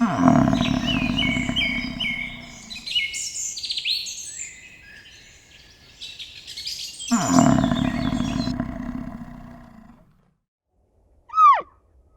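Small birds chirping and twittering, overlaid by two long, loud low animal calls, one at the start and one about seven seconds in. Near the end comes one short, loud call that falls in pitch.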